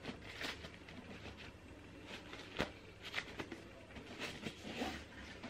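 Soft rustling and handling of a black fabric pouch as it is opened and its contents are taken out, with scattered light clicks, the sharpest about two and a half seconds in.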